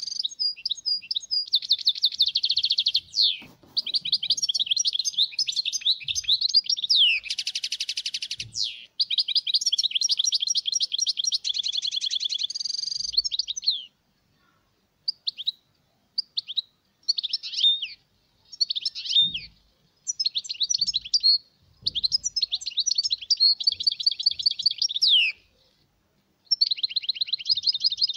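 European goldfinch song: long runs of rapid twittering and buzzy trills. The song is continuous for about half the time, then breaks into shorter phrases with brief pauses.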